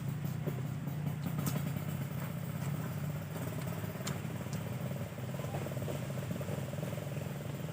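A steady low motor hum, with a few small clicks over it.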